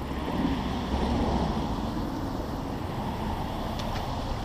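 Steady low rumbling background noise with no distinct events in it.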